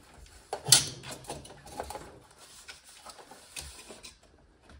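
Metal stovepipe trim collar and ring being handled and pressed around a chimney wall thimble: a sharp scrape of metal on metal about a second in, then light rubbing and scattered clicks that fade out near the end.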